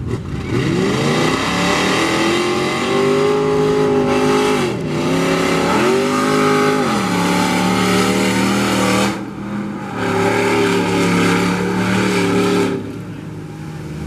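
Engines of two mud-racing trucks at full throttle off the line. The pitch climbs steeply, drops back and climbs again at each gear change, and grows fainter near the end as the trucks move away down the track.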